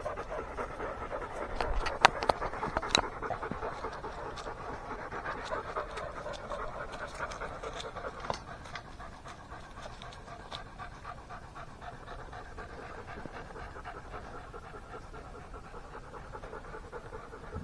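A dog panting steadily and continuously, with two sharp clicks about two and three seconds in.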